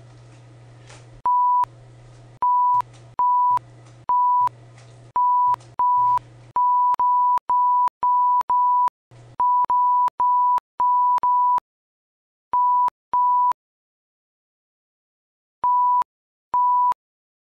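Censor bleep, a single steady beep tone repeated about twenty times in short bursts, bleeping out swearing. The beeps come in quick succession at first and spread out toward the end. Between them a low hum gives way to dead silence.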